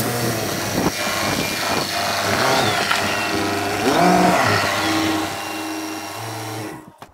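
Nissan GU Patrol engine running as the four-wheel drive is driven out of the carport and down the driveway, its note rising and falling. It cuts off suddenly just before the end.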